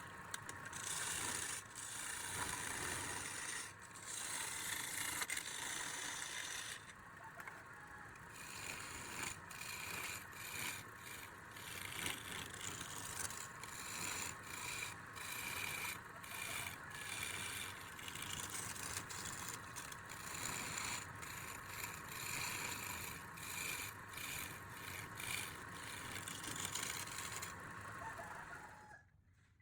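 Wood being worked with tools: continuous scraping and rubbing made up of many short strokes, which cuts off near the end.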